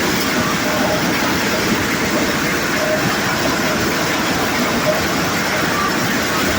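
Conveyor-fed corn sheller (maize thresher) running steadily, with a loud, continuous rattling clatter.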